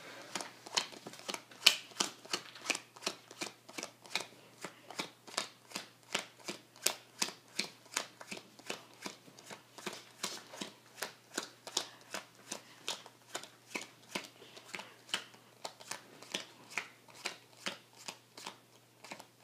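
Playing cards dealt one at a time from a 52-card deck into four piles of 13: a steady run of light card snaps at about three a second.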